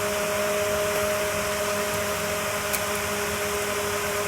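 Steady whirring of a small motor-driven blower, with a constant hum underneath.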